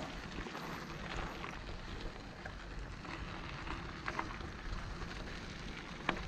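Footsteps crunching on a gravel path, over a steady rustling outdoor background.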